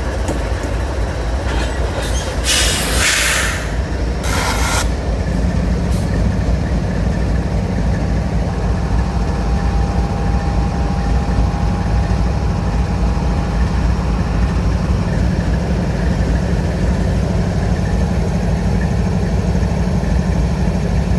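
GE diesel-electric freight locomotives running under power as they pull a train past close by, a steady deep engine rumble. Two short bursts of hissing come about three and five seconds in, and a faint steady whine sounds through the middle.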